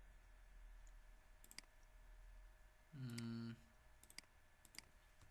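Faint computer mouse clicks, several of them in quick pairs like double-clicks, with a short hummed voice sound about three seconds in.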